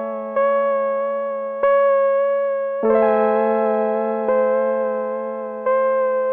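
Slow instrumental keyboard music: sustained chords over a held low note, with a new chord struck five times, each fading away before the next.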